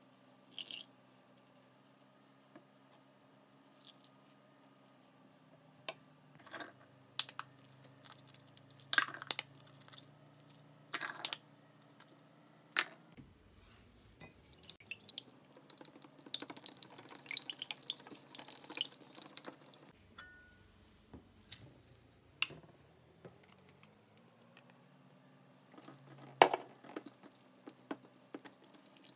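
Wire whisk beating raw eggs in a bowl, then mixing chopped herbs into them, with scattered taps and clinks of the utensils against the bowls. A run of fast, rattly whisking lasts about six seconds in the middle, and there is one loud clink near the end.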